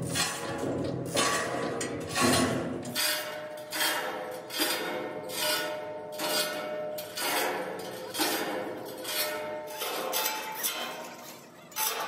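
Hammer blows on a welded steel truck-body frame, about one a second, each strike leaving the steel ringing.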